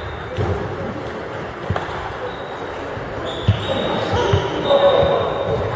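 Table tennis balls clicking as they bounce on tables and the hall floor, scattered single knocks, over a hum of voices echoing in a large sports hall.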